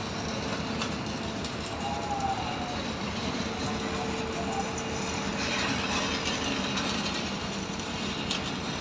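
Stick (SMAW) welding arc crackling steadily, over a steady hum.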